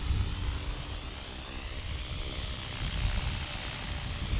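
Radio-controlled T-Rex 500 class model helicopter hovering low as it comes in to land: a steady high-pitched motor and rotor whine over a low rumble.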